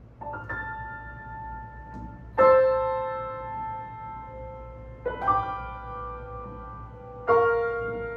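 Chickering & Sons baby grand piano played slowly: about four chords struck a couple of seconds apart, each left ringing and fading, the loudest about two and a half seconds in.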